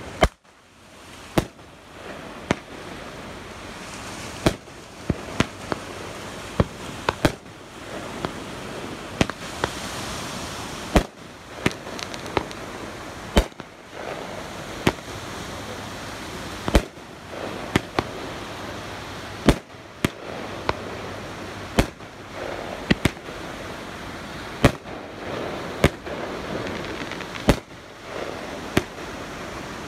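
Aerial fireworks bursting overhead: a string of sharp bangs, roughly one every second or so, with a steady hiss between them.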